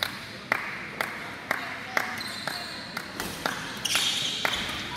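Badminton rally: sharp racket hits on the shuttlecock, about two a second. Sports shoes squeak on the court floor near the end.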